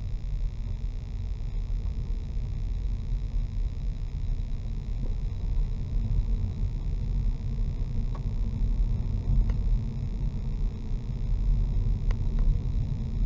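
Car driving along a narrow country lane, heard from inside the cabin: a steady low rumble of tyres and engine, with a few faint ticks in the second half.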